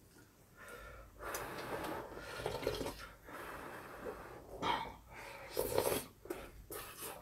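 Close-up eating sounds: stew slurped from a small bowl, with chewing and loud breathing between mouthfuls, in several irregular bursts.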